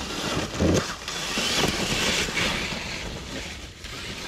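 Traxxas TRX-4 RC crawler driving across a pine-needle forest floor, its tyres scrabbling and spinning through dry needles and leaves as the locked rear end slides. A low thump comes a little under a second in, and the rustle is strongest around two seconds in.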